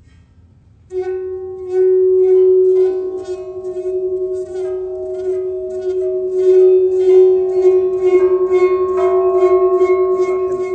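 Singing bowl rubbed around its rim, starting about a second in: one steady humming tone with overtones and a regular pulsing wobble as the mallet circles, growing fuller as higher overtones join.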